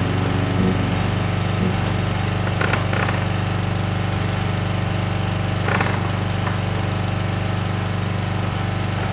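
Ride-on lawn mower engine running at a steady speed, with a few brief sharp clicks.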